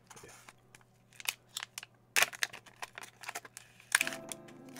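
Shiny foil pouch crinkling and crackling in the hands as it is worked open, in irregular sharp crackles, loudest about two seconds in and again near the end.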